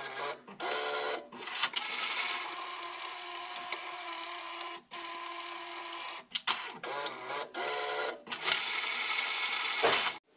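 Brother tape label printer printing and feeding out a label, its motor whirring in several runs with short pauses between them, ending in a louder clack just before it stops.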